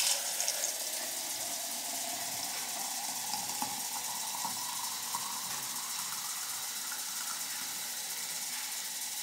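Kitchen faucet running a steady stream of filtered water into a tall glass, with a pitch that slowly rises as the glass fills.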